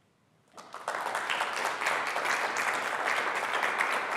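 Audience applauding: the clapping begins about half a second in, swells quickly and then holds steady.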